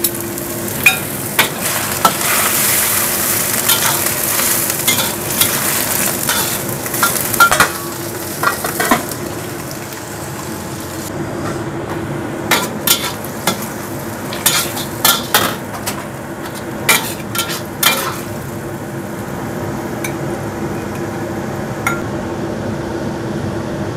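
Spinach (pocai) stir-frying in a hot pan, sizzling steadily while a utensil scrapes and clicks against the pan as it is tossed, with a run of quick clicks about halfway through. The greens are being seasoned with salt and bouillon.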